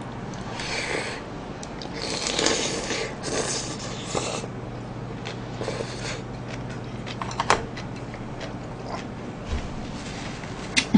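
Close-miked eating: a woman slurping and chewing a mouthful of pork gukbap, heard as several short noisy bursts over the first four seconds and one more about six seconds in. A few light clicks follow, over a steady low hum.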